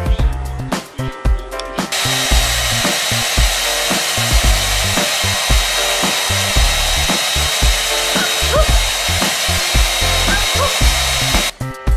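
Hand-held hair dryer running with a steady hiss and a thin high whine, starting about two seconds in and cutting off shortly before the end, over background music with a steady beat.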